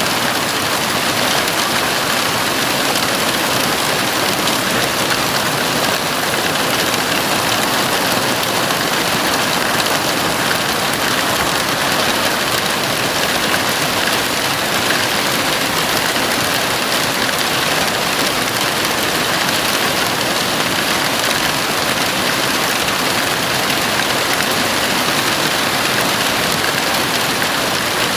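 Heavy rain falling steadily on a house roof: a dense, even hiss with no let-up.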